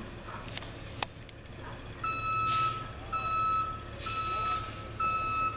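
Tow truck's reversing alarm beeping about once a second, starting about two seconds in, over the low, steady rumble of the truck's engine.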